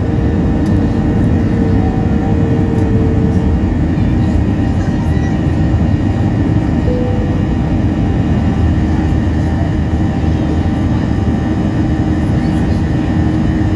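Airliner's engines at take-off power heard from inside the cabin during lift-off and initial climb: a steady, loud rumble, with a faint humming tone over it that stops about three seconds in.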